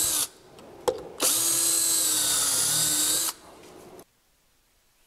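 DeWalt cordless drill boring pocket holes in a pine frame piece through a pocket-hole jig. A short run stops, a sharp click follows about a second in, then a second steady run of about two seconds winds down.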